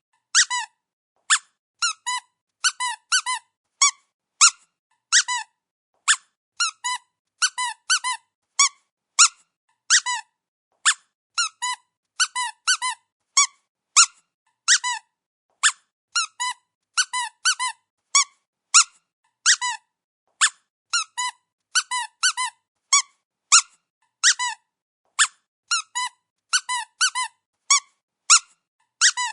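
Squeaky dog toy squeezed over and over: short high squeaks, singly or in quick runs of two or three, with brief pauses between.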